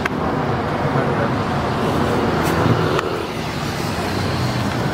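Road traffic on a busy street: a steady wash of engine and tyre noise from passing cars, with an engine growing louder near the middle as a vehicle goes by close.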